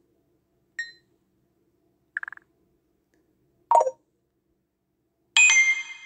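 Facebook Messenger notification-sound previews playing from a phone as each tone in the list is selected. Four short electronic tones sound about a second and a half apart. The last and loudest is a bright ringing chime that fades out.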